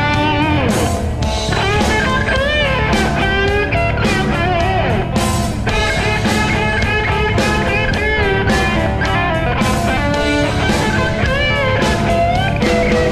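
Instrumental rock music: an electric lead guitar playing bending notes over bass and a steady drum beat, with no singing.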